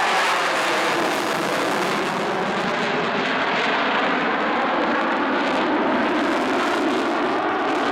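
Eurofighter Typhoon's twin EJ200 turbofan engines running at high power with afterburners lit through a display turn, giving a loud, steady jet noise. A faint tone in it slides down in pitch during the first second.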